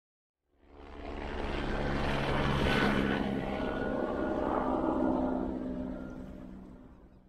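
Propeller aircraft engine passing overhead, its drone growing louder and then fading away.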